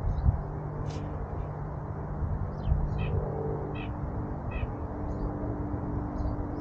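White-breasted nuthatch calling: short, high call notes repeated at irregular intervals, roughly one or two a second.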